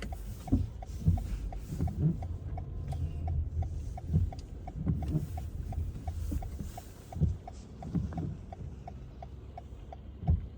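Car hazard-light flasher ticking steadily, about three clicks a second, over irregular low thuds and rumble.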